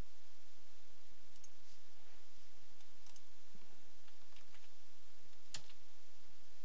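A few scattered light clicks from a computer mouse and keyboard, with one sharper click about five and a half seconds in, over a steady background hiss.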